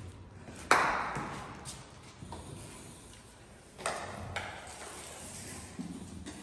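A sharp knock on a hard surface about a second in, ringing on with a long echo in a stone stairwell, and a second, fainter knock nearly four seconds in.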